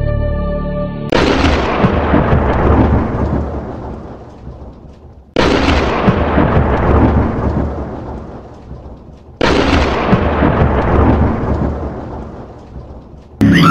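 Three loud recorded thunderclaps played as a stage sound effect, each starting suddenly and rumbling away over about four seconds. Music with a held tune stops about a second in, just before the first clap.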